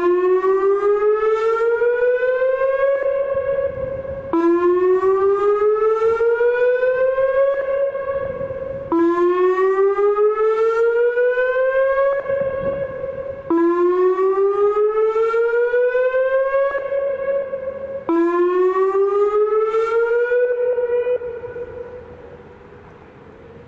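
Whelen WPS-2809 electronic outdoor warning siren sounding its whoop tone on a test: five rising whoops, each climbing in pitch for about three seconds and holding briefly before dropping back, about every four and a half seconds. During the last whoop the siren is switched off and the tone fades away near the end.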